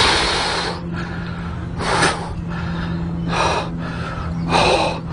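A man breathing hard, with four loud, hissing breaths a second or so apart, while playing a hooked carp; a steady low hum runs underneath.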